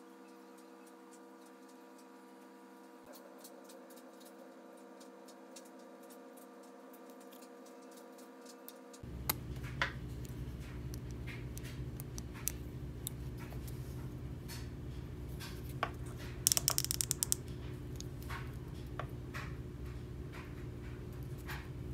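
Steady hum, with light clicks and taps from a wooden crankbait and its clear plastic lip being handled and fitted. The hum gets fuller and lower about nine seconds in, and there is a quick run of clicks about 16 seconds in.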